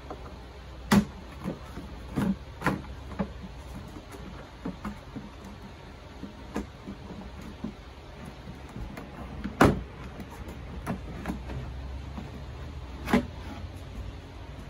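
Plastic body panels of a Yamaha Kodiak 700 ATV being worked loose by hand: a scattered series of sharp plastic clicks and knocks as the clips let go, loudest about a second in, two-thirds of the way through and near the end.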